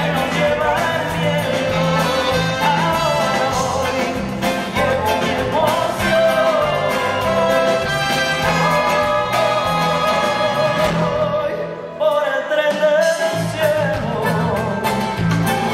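A woman singing a melody into a microphone over a live band. The bass drops out for a moment about twelve seconds in, then the band comes back in.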